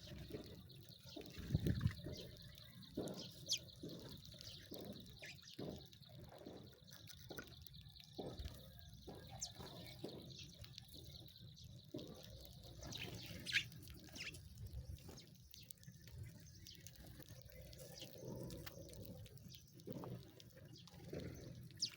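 Sparrows: a few brief high chirps among many scattered soft taps and clicks that sound like dripping water.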